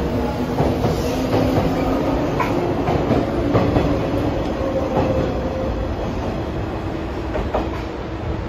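JNR 485-series electric train pulling out and rolling past at low speed: a steady running rumble with a low hum that rises slightly in pitch over the first few seconds, and wheels clacking over rail joints at irregular intervals of a second or two.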